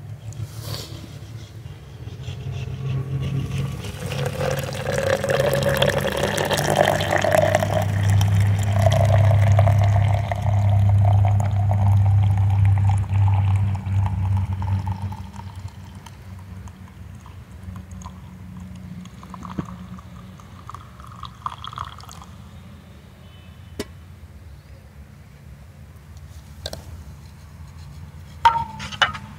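Liquid being poured into a vessel for about ten seconds, its pitch rising steadily as the vessel fills, over a low rumble. A few sharp clicks come near the end.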